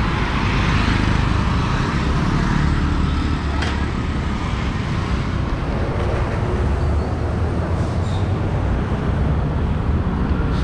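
Steady street traffic: vehicle engines and tyres running past in a continuous rumble.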